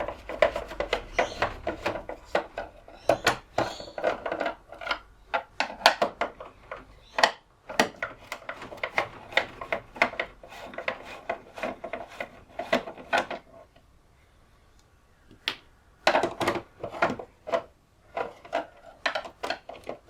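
Hands working at a UPS's plastic case and lead-acid battery, trying to pull out a battery that is stuck: a rapid run of clicks, knocks and scraping, with a short pause about two-thirds through.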